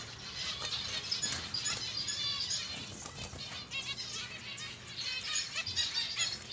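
Small caged finches chirping with many short, high calls, mixed with some wing flutter.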